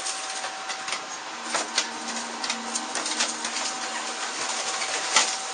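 Scratchy clicking and fluttering of fledgling birds flapping their wings and scrabbling on the enamel of a bathtub, over a steady faint hum.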